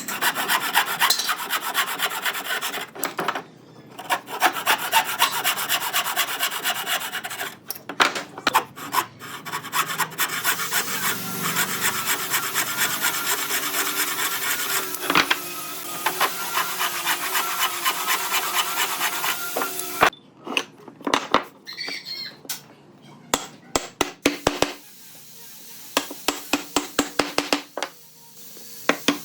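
Wood being sanded or rasped by hand: long stretches of steady scraping with short breaks, then a run of quick sharp taps over the last few seconds.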